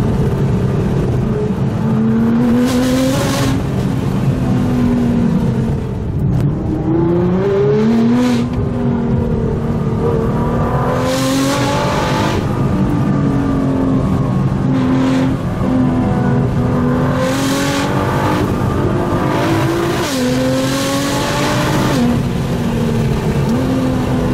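Nissan GTR's twin-turbo V6 through a full titanium Armytrix exhaust, heard from inside the cabin while driving. It accelerates and eases off repeatedly, its pitch climbing and then dropping sharply at each gear change, with several short bursts of hiss.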